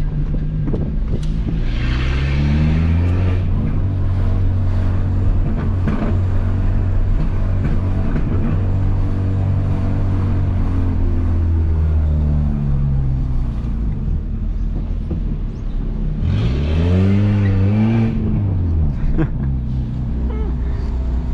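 Peugeot 206 1.4 four-cylinder engine on a straight-through exhaust with no catalytic converter and no mufflers, pulling under acceleration. The revs climb about two seconds in, hold high for about ten seconds, then drop back. Later there is a short, quick rev rise and fall.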